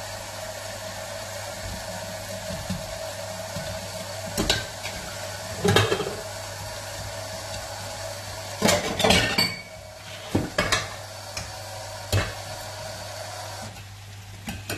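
Metal pots and utensils clanking and clinking every second or two, about half a dozen knocks, while the pasta is lifted out of its cooking water. A pan of meat and vegetables sizzles steadily underneath, and the steady part stops about a second before the end.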